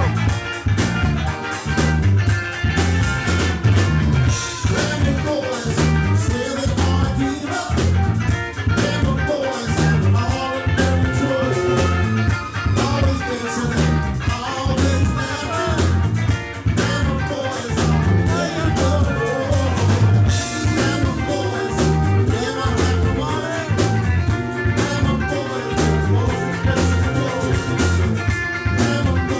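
Live rock band playing loud through a club PA, with electric guitar, bass guitar and drum kit.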